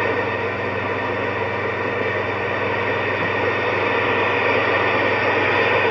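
Steady hiss with a low hum from a General Lee CB radio's speaker as an incoming station holds the channel open, with no voice on it yet.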